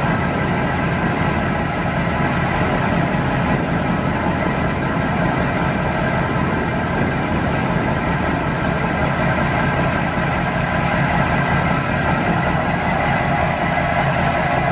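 A boat's engine running steadily under way: a constant drone with several steady tones.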